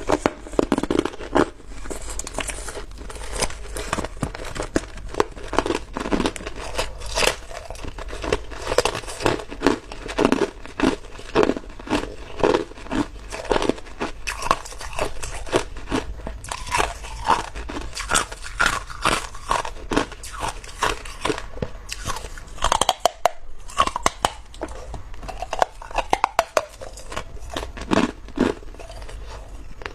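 A person biting and chewing hard chunks of clear ice close to the microphone: a dense, irregular run of sharp cracks and crunches.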